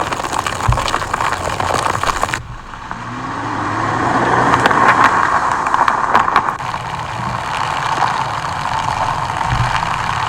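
AI-generated car sound effect: engine and road noise that cuts off abruptly about two and a half seconds in. It then comes back with an engine note that rises in pitch and grows louder, as if the car is accelerating, before settling into a steady run.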